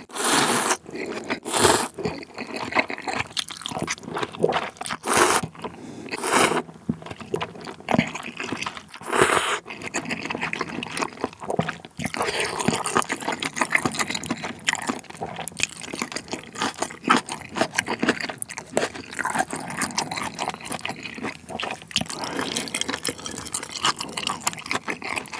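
Close-miked slurping of jjamppong noodles out of spicy seafood soup, with five loud slurps in the first ten seconds, then continuous wet chewing and smaller slurps.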